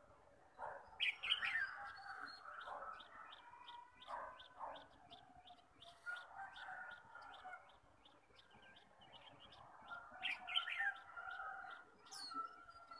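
Caged white-eyes (khuyên) singing: a long run of quick, high, thin chirps, several a second, over lower warbling, with louder bursts of song about a second in and again about ten seconds in.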